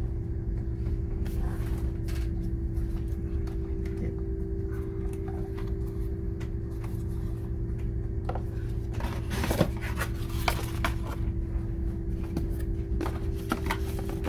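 Handling sounds of cardboard drone packaging: scattered clicks, taps and scraping that cluster about two-thirds of the way through and again near the end, over a steady low hum.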